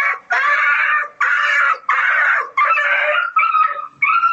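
An animal crying out loudly again and again: harsh screeching cries, each under a second, about one and a half a second, growing shorter and fainter near the end.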